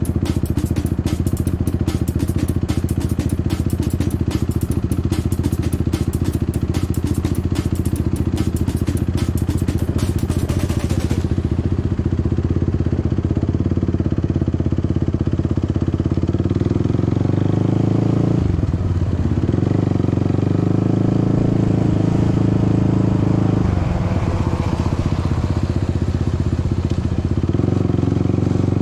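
Suzuki LT-R450 quad's single-cylinder four-stroke engine idling with a rapid ticking, then pulling away and running harder from a little past halfway, its note dropping out briefly twice, a few seconds apart.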